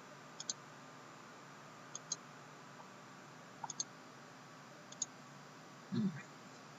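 Light, sharp clicks of a computer mouse, mostly in quick pairs about every one and a half seconds, with a short low thump near the end.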